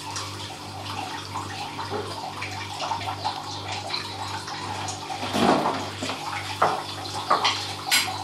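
Vinegar poured from a plastic bottle into a metal spoon and tipped into a plastic tub over baking soda, spoonful after spoonful, with a few sharper clicks in the second half. A steady low hum runs underneath.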